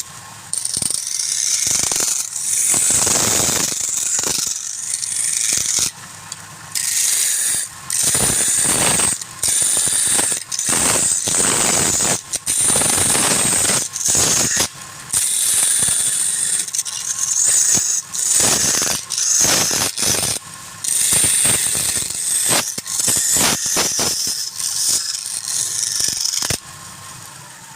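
A gouge cutting wood on a spinning lathe: a loud hissing scrape in many short stretches that start and stop abruptly, with a ratchet-like rattle from the tool against the turning wood.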